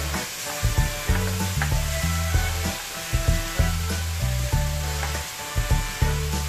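Garlic, onion and tomato sizzling in oil in a nonstick wok, stirred with a plastic spatula that scrapes against the pan, over background music with a bass line.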